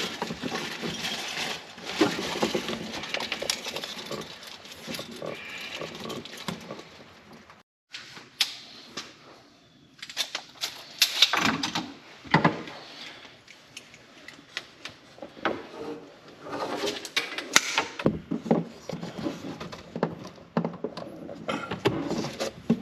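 Scattered clicks, knocks and rubbing of PEX pipe and plastic fittings being handled and pushed together for a dry fit, the sound breaking off completely for a moment about eight seconds in.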